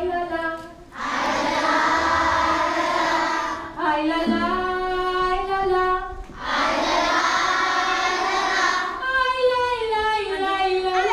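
Call-and-response singing: a single lead voice sings held notes, and a large group of children sings back in a loud, dense chorus, twice.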